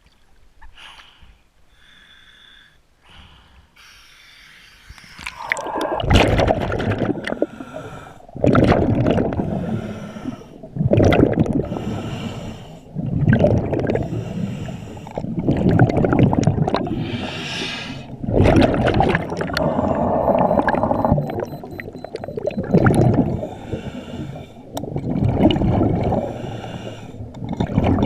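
Scuba diver breathing through a regulator underwater, starting about five seconds in: a regular cycle of breaths, each exhale a burst of bubbles, about every two and a half seconds.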